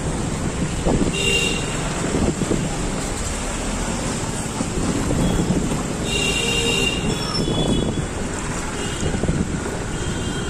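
Street traffic noise with wind buffeting the microphone, and a vehicle horn tooting twice: briefly about a second in, and again for about a second around six seconds in.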